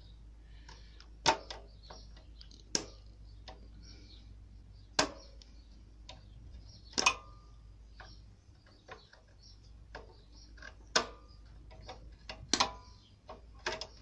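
Needle-nose pliers clicking against the split link of a moped's steel drive chain while its spring clip is prised off: about six sharp metallic clicks, spaced unevenly one to four seconds apart.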